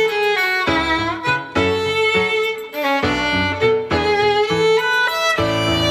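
Background music led by a violin, moving from note to note over a low accompaniment.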